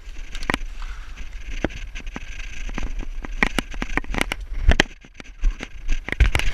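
Irregular knocks, scrapes and rustles of a person climbing out through a broken wooden window frame and stepping onto rubble and gravel, with a steady low wind rumble on the microphone.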